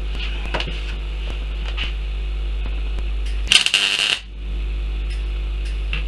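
MIG welder firing one short tack weld on a steel bracket, a loud crackle lasting under a second about three and a half seconds in, with a few faint ticks before it. A steady mains hum sits underneath.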